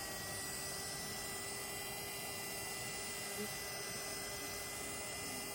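Hot-air blower running steadily, a constant hiss with a faint hum, heating the phone's edge to soften the screen adhesive.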